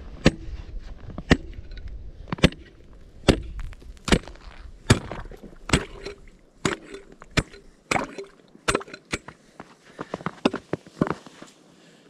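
Steel ice chisel striking thin first ice, 5–7 cm thick, to chop a fishing hole: about a dozen sharp chops roughly one a second, giving way to a few lighter knocks near the end.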